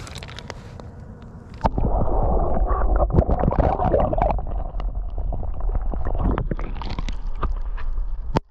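Lake water lapping against an action camera, then from about two seconds in a loud, muffled gurgling and bubbling rumble with many small clicks as the camera's microphone goes underwater; it cuts off abruptly near the end.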